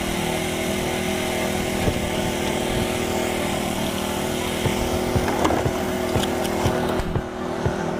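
An engine running steadily at a constant speed, with scattered knocks and rattles over it.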